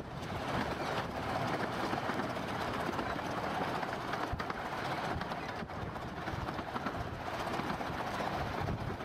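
15-inch gauge miniature steam train running: a steady rumble of carriage wheels on the rails mixed with air rushing past the open window.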